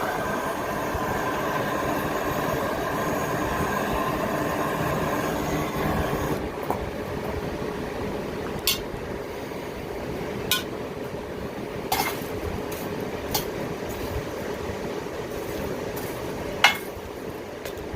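Electric forge blower running with a steady whine and air rushing through the coal fire; the whine fades about six seconds in, leaving the steady rush. Half a dozen sharp clicks and clinks come at scattered moments.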